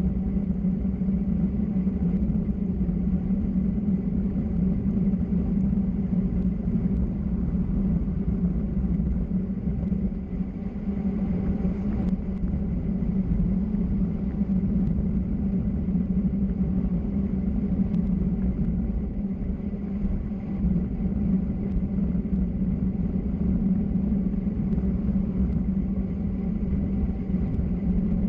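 Steady low rumble of travel down a mountain road: a constant drone with tyre and wind noise, unchanging throughout.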